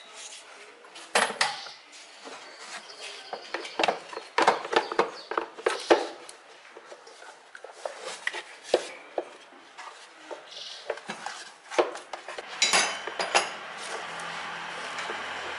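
Plastic clicks, knocks and rattles of a Kia Picanto's air filter housing and intake duct being unclipped and lifted by hand, coming in irregular bunches.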